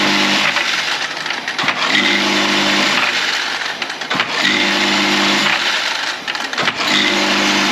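Automatic tablet counting and bottle-filling machine running: a steady rattle of tablets moving over the counter's feeder tray, with a low hum that comes on for about a second roughly every two and a half seconds, each time just after a sharp click.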